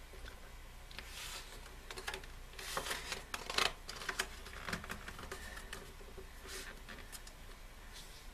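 Pages of an album photo book being handled and turned: paper rustling with scattered light clicks and taps.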